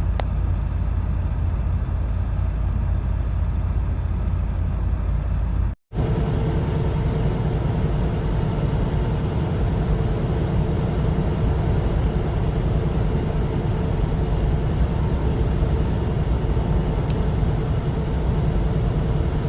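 Semi-truck cab noise while driving: steady engine and road rumble. About six seconds in the sound cuts out for an instant and comes back as a steady droning hum.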